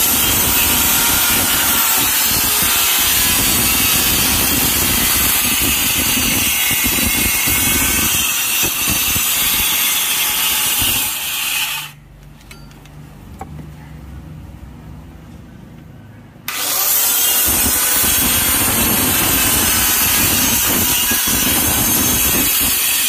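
Handheld electric saw cutting through a plank of karungali (black ebony) hardwood. The saw runs loud and steady, stops about twelve seconds in, and starts cutting again about four seconds later.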